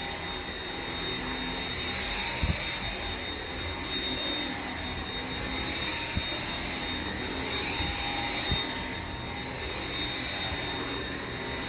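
Dyson V7 cordless stick vacuum running with its motorized brush head: a steady high whine over the rush of suction, swelling and easing slightly as it is pushed back and forth.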